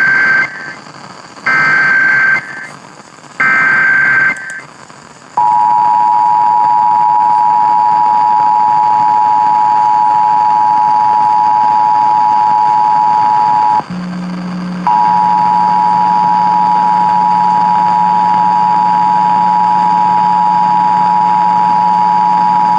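Emergency Alert System tones: three short bursts of warbling SAME header data tones about a second apart, then the steady two-tone EAS attention signal (853 and 960 Hz sounding together). The attention tone drops out for about a second near the middle and comes back with a low hum underneath it.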